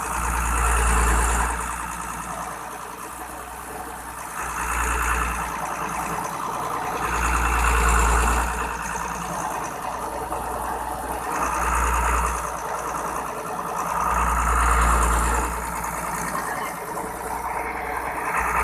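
Engine-driven oil suction pump running, its sound swelling and easing in a regular cycle about every three to four seconds.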